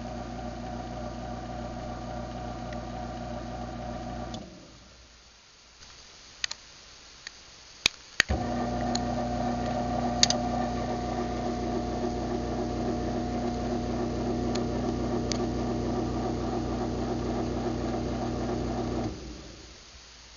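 Craftsman ½ hp garage door opener running with a steady motor hum, stopping about four seconds in. A few sharp clicks follow, then an opener starts again about eight seconds in and runs steadily for about eleven seconds before stopping near the end.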